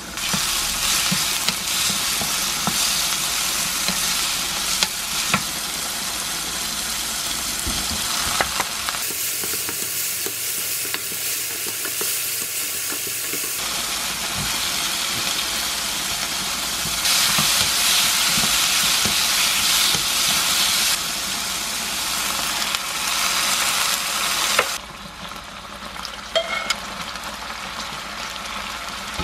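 Onion, garlic and mushrooms sizzling in hot olive oil in a frying pan, stirred with a wooden spatula that scrapes and taps the pan in scattered clicks. The sizzle steps louder and quieter at a few points and drops down near the end.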